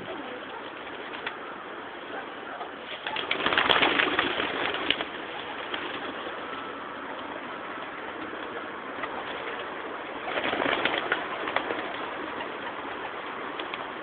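Pigeons in flight: two louder bursts of rapid wing clatter, about three and ten seconds in, over steady background noise.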